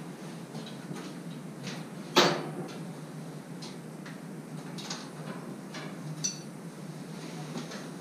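Scattered knocks and clinks of someone handling things at a steam boiler, over a steady low hum. There is one loud knock about two seconds in and a short ringing clink about six seconds in.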